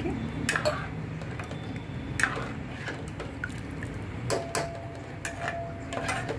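Steel spoon stirring thin tomato gravy in an aluminium pot, clinking and scraping against the pot's sides now and then.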